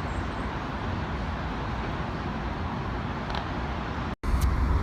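Steady city traffic noise, an even wash of passing cars. About four seconds in it cuts out for an instant and returns with a louder low rumble.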